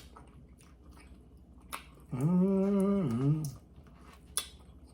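Someone chewing and gnawing meat off pork rib bones, with small wet clicks, then a closed-mouth "mmm" of enjoyment held for about a second and a half midway, dipping in pitch at the end.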